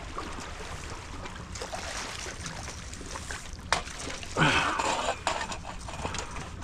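A hooked fish splashing at the water's surface as it is reeled to a landing net: a sharp click, then a short burst of splashing about four and a half seconds in, the loudest moment. Under it runs a steady low rumble.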